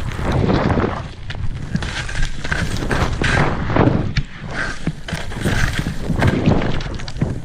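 Skis hissing through deep powder snow in surges about once a second as the skier turns, mixed with wind buffeting the action camera's microphone.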